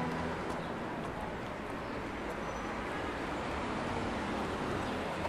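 City street ambience: a steady wash of distant traffic noise, after the last notes of music die away at the very start.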